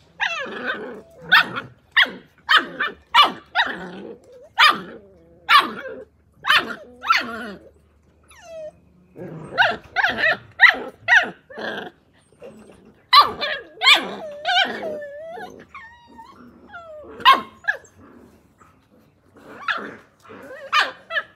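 Australian cattle dog (blue heeler) puppies barking in play: quick runs of short, high yaps with brief pauses between them, and a few thin gliding whines near the middle.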